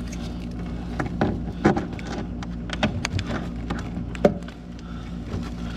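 Scattered clicks and knocks of a rubber condensate drain hose and its spring clamp being handled and fitted onto a furnace drain, over a steady low hum.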